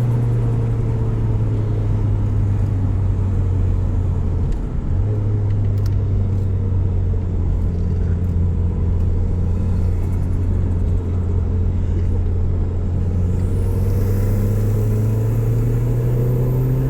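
Saab 9000 2.3 turbo four-cylinder running with a loud, steady low drone. It dips briefly about four and a half seconds in, and its pitch rises near the end.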